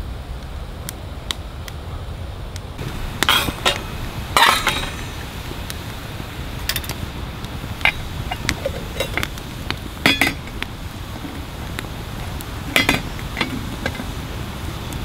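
Metal cookware and utensils clinking and scraping: scattered light clicks and a few short, louder clatters, the biggest about three and a half, four and a half, ten and thirteen seconds in, over a steady low rumble.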